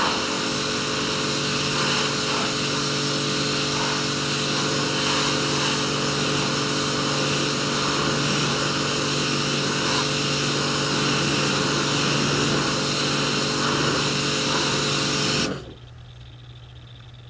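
Electric pressure washer running, a steady motor hum under the hiss of the water jet. About fifteen seconds in it cuts off suddenly as the trigger is let go, leaving only a faint low hum.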